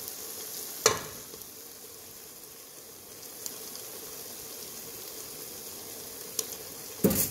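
Mutton liver sizzling steadily in a pot as cooking oil is poured onto it. Two sharp knocks, one about a second in and one just before the end.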